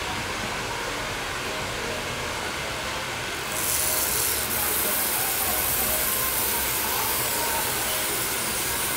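A steady hiss over a constant low background noise. The hiss starts abruptly about a third of the way in, holds even, and cuts off suddenly near the end.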